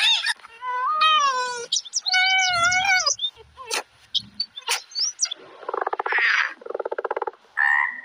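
Dolphin whistles: several loud gliding calls rising and falling in pitch, followed by a few sharp clicks. From about six seconds in come a frog's rough, rapidly pulsed croaks.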